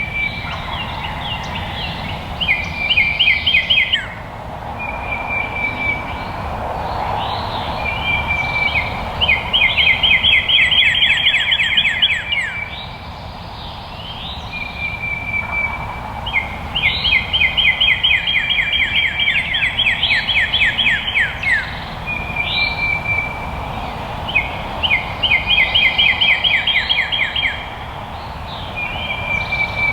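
A songbird singing the same phrase over and over, roughly every seven seconds: a held whistled note followed by a fast trill of short slurred notes, over faint outdoor background noise.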